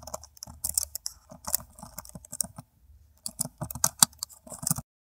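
Typing sound effect: quick, irregular keystroke clicks over a faint low hum, with a short pause about three seconds in. The clicks stop shortly before the end.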